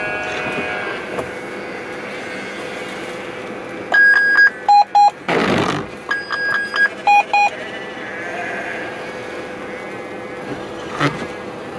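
Electronic beeps inside a vehicle cab: a long high beep followed by two short lower beeps, played twice about two seconds apart. Between the two, a windscreen wiper swishes across the glass.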